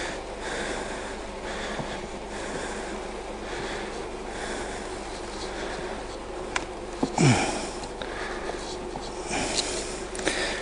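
Honey bees humming steadily around the opened brood box, with soft hissing swells coming and going. About seven seconds in a single bee buzzes close past the microphone, its pitch dropping quickly, with a few sharp clicks around it.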